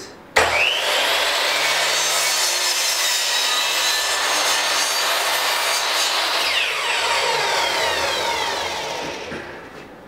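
Porter-Cable miter saw switched on, its motor whining quickly up to speed, then the blade cutting through a wooden board. From about six and a half seconds the trigger is released and the blade winds down, its pitch falling as it fades out.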